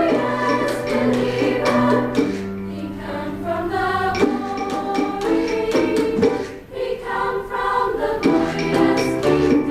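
A women's choir singing a piece in several parts at once, with held notes shifting from chord to chord.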